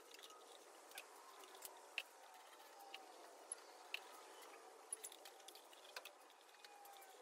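Near silence: faint room tone with small clicks and taps, many of them about a second apart, as cables and plugs are handled inside a wooden cabinet.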